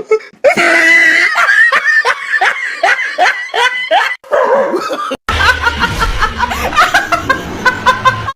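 People laughing hard in rapid, repeated bursts. About five seconds in the sound cuts to another stretch of laughter over a low steady hum.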